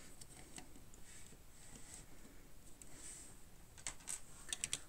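Faint clicks and light clatter of small plastic Wange building bricks being handled and fitted together, with a quick run of sharper clicks near the end.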